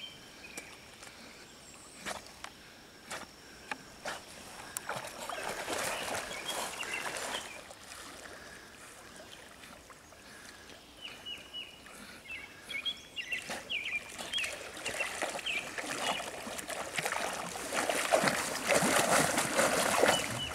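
Large dog swimming in a pond, its paddling splashing the water in spells, then louder splashing near the end as it wades out through the shallows.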